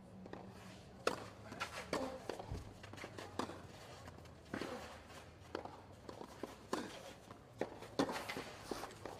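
Footsteps and sharp taps on a clay tennis court between points, several irregular taps about a second apart.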